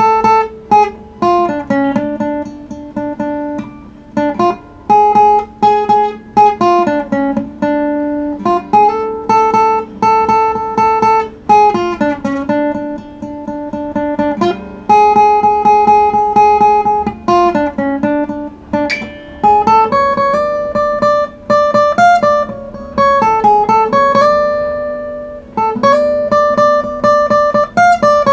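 Acoustic guitar improvising a melody in the Ethiopian anchihoye scale: held notes picked in rapid repeated strokes, moving step by step over a droning low note.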